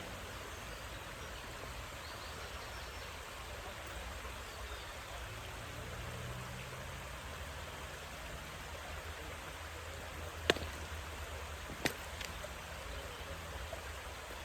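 Steady rush of flowing water, with two sharp clicks about a second and a half apart near the end.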